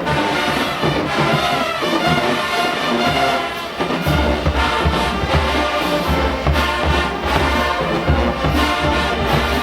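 Marching band playing loud, brass-heavy music, with a deep low-brass bass line coming in about four seconds in over a steady drum beat.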